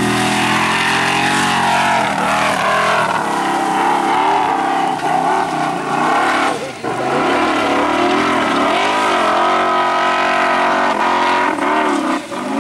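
Formula Offroad buggy's engine revving hard, its pitch swinging up and down as the throttle is worked. It lifts off briefly about halfway through, then revs again.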